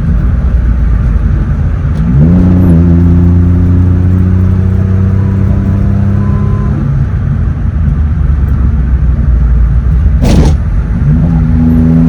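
A Daihatsu Cuore's small engine running through a freshly fitted HKS aftermarket exhaust as the car drives. The engine pulls up in pitch about two seconds in, holds a steady note, and eases off around seven seconds. Near ten seconds there is a brief loud knock, after which the engine pulls up again.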